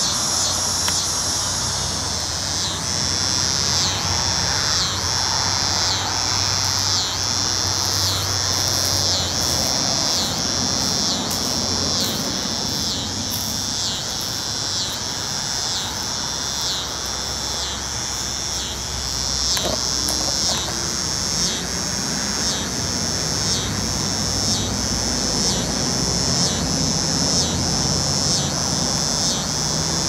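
Neotibicen (dog-day) cicadas calling from the trees: a loud, high buzz that pulses evenly, about three pulses every two seconds.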